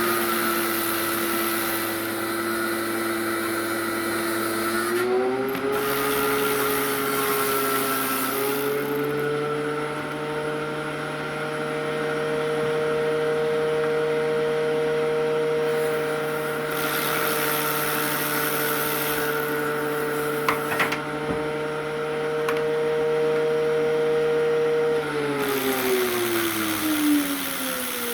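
A motor running steadily with a clear hum, its pitch stepping up twice in the first several seconds and sliding down near the end, with a high hiss that cuts in and out and a few sharp clicks.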